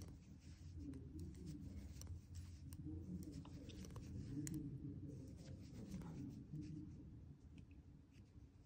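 Faint handling sounds of hand knitting: scattered light clicks and ticks of the knitting needles and the rub of yarn as stitches are purled, over a low steady hum.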